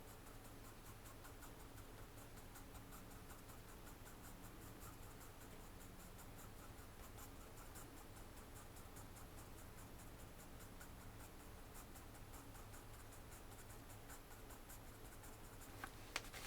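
Faint pencil scratching on paper: many quick, short strokes repeating steadily, as grass and fine detail are drawn. A couple of sharper clicks come near the end.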